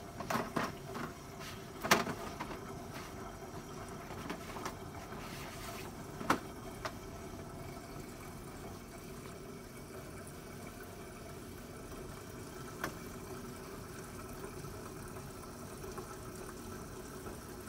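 Nespresso machine filling with water during its cleaning cycle: a steady pump hum with running water, broken by a few brief clicks.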